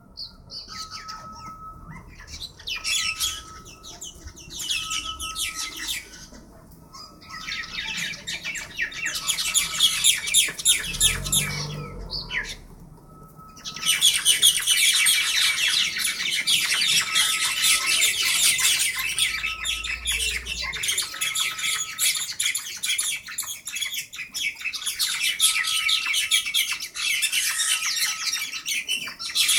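A group of birds squawking and screeching harshly in a fight. The calls come in short bursts at first, then run almost without a break for most of the rest. A short beep repeats about once a second behind them, and a low rumble passes through about eleven seconds in.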